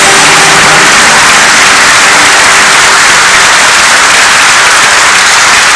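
Audience applauding steadily, a loud, even clatter of many hands.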